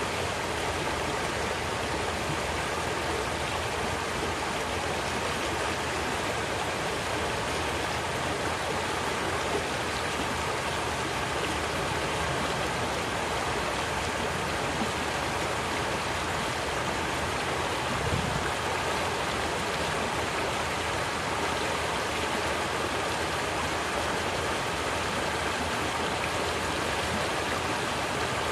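Wide, shallow river flowing over a stony bed and small riffles: a steady rush of running water.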